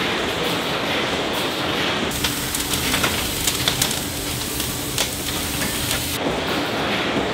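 Cross-compound mill steam engine running with a steady mechanical noise. About two seconds in this gives way to a coal fire crackling in the open firebox of a Cornish boiler as it is stoked, with a few sharp clinks. The engine sound returns near the end.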